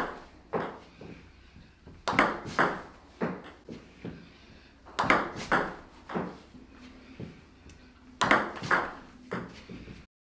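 Table tennis ball clicking in repeated quick runs of three or four sharp ticks about half a second apart: the rubber racket striking the ball on fast backspin reverse pendulum serves and the ball bouncing on the table. A new run starts about every three seconds, and the sound cuts off abruptly just before the end.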